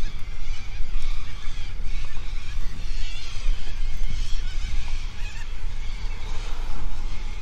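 A flock of birds calling, many short wavering calls overlapping, over the steady low rumble of a car moving slowly.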